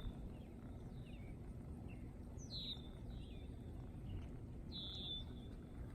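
Wild birds chirping: several faint short chirps, and two clearer calls about two and a half and five seconds in that sweep down to a high buzzy note. Underneath runs a low steady background rumble.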